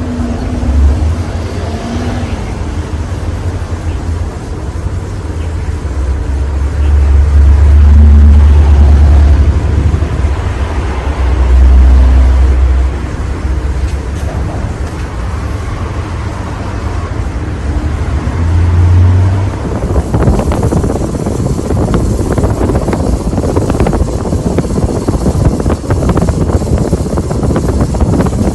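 Casablanca Halogen Star ceiling fan running, its downdraft buffeting the microphone in low swells of wind noise that come and go, with a steady rushing hiss that turns rougher in the last third.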